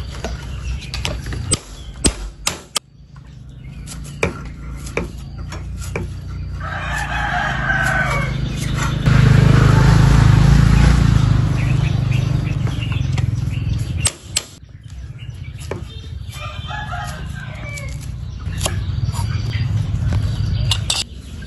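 A kitchen knife chopping spring onions on a thick wooden chopping block, giving sharp knocks, while a rooster crows about seven seconds in and again near the end. A loud low rumble fills a few seconds in the middle.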